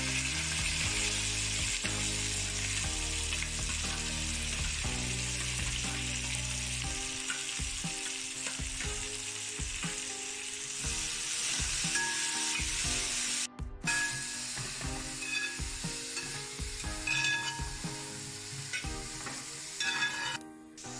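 Sliced onions, green chillies and curry leaves sizzling in hot coconut oil in a wide aluminium uruli, stirred with a spatula as they sauté. The steady sizzle drops out briefly twice in the second half.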